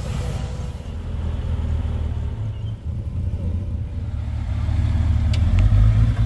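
Classic car engine running as a car drives in, a low rumble that grows louder toward the end, with a couple of brief clicks near the end.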